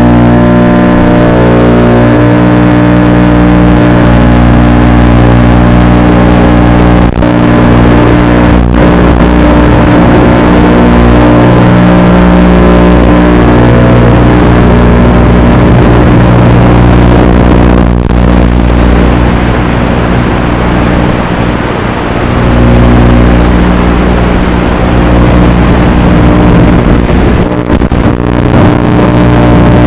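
FPV quadcopter's motors making a loud, distorted buzz: a stack of steady tones that shift in pitch several times, with a few brief dropouts and clicks.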